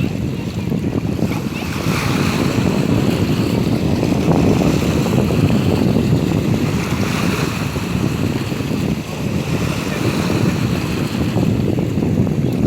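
Waves washing onto the shore of the Sea of Azov, with wind buffeting the microphone in a loud steady rumble. Several wave washes swell and fade, about two seconds in, around seven seconds and again near the end.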